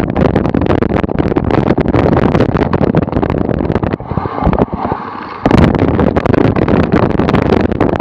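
Cyclocross bike ridden over bumpy grass, heard through a camera mounted on the bike: a loud, dense rattle of knocks with wind on the microphone. It eases off about four seconds in for a second and a half, then comes back loud.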